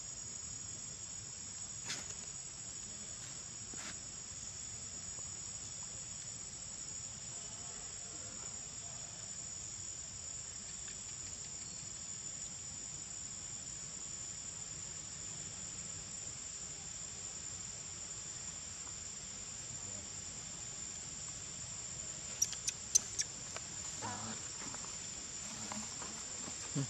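Steady, high-pitched insect chorus of crickets or cicadas, an unbroken buzz, with a few sharp clicks near the end.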